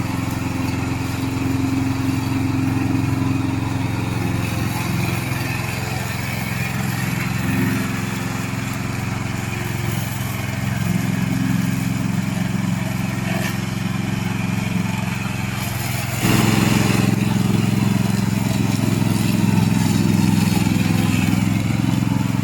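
Loncin 9 hp petrol engine of a remote-control slope mower running steadily; about sixteen seconds in it suddenly gets louder and stays that way.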